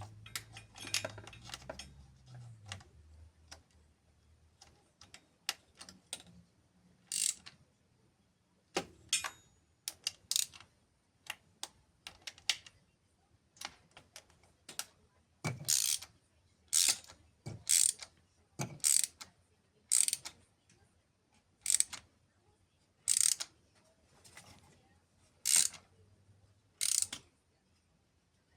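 Hand ratchet wrench clicking in short strokes while a bolt is turned during engine work. The strokes are scattered at first, then settle into about one stroke a second in the second half.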